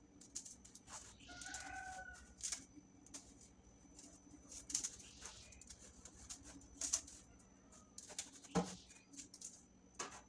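Cloth rubbing and swishing over a wire-mesh air fryer rack as it is dried by hand, with light knocks of the metal rack, the loudest about seven and eight and a half seconds in.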